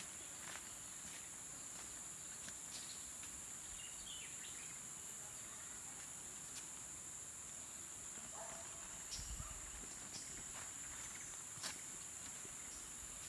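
Steady, high-pitched drone of forest insects, with a few faint light clicks and a brief low rumble about nine seconds in.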